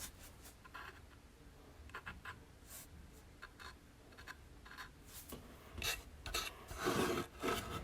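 Paintbrush strokes on a wooden birdhouse: short, soft brushing and scratching sounds, coming more often and louder near the end.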